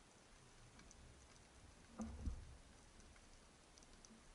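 Faint underwater ambience heard through a camera housing: scattered small clicks and crackle, with one low, dull thump about two seconds in.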